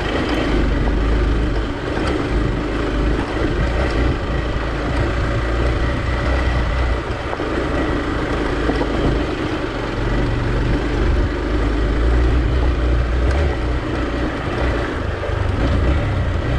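Hero XPulse 200's air-cooled single-cylinder engine running steadily as the motorcycle rides slowly over a rough, rocky dirt track.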